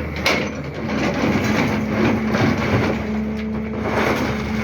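SANY excavator's diesel engine running steadily at the well dig, with a sharp knock near the start and a few fainter knocks after it.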